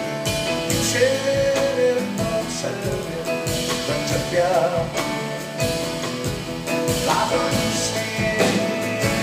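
A man singing a song live while accompanying himself on a keyboard, with the sung lines coming in phrases over continuous instrumental accompaniment.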